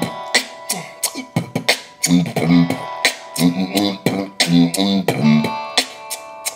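Vocal beatboxing: quick mouth clicks and snare-like hits with short low voiced bass notes, over held guitar tones from a phone guitar app.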